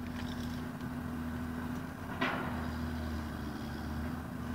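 Engine idling steadily, heard from inside a vehicle cab, with a single knock about two seconds in.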